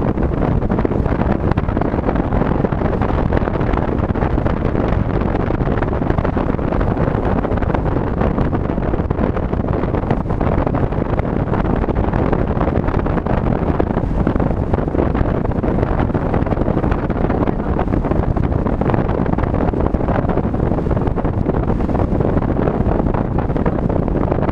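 Steady road and wind noise of a car cruising along the road, an even rush strongest in the low end with wind buffeting the microphone.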